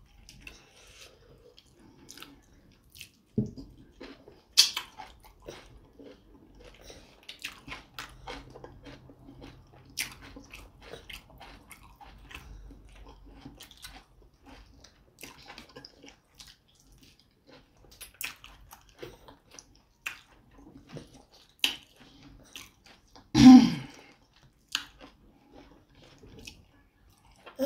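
Close-up mouth sounds of eating ogbono soup with fufu: chewing and wet lip-smacking with many small clicks. Near the end comes one louder, short sound.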